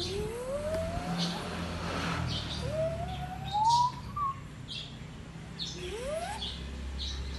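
Birds calling: short high chirps, with three slow rising whistled notes, each about a second or less long, over a steady low hum.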